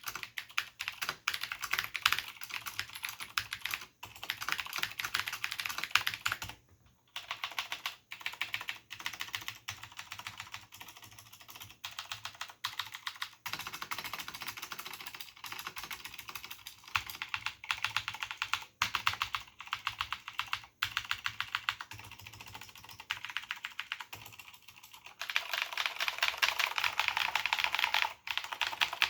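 Typing on a Cherry G80-1813 keyboard with Cherry MX Blue switches and original Cherry doubleshot keycaps: a steady stream of clicky keystrokes. The typing breaks off briefly about seven seconds in and becomes faster and louder near the end.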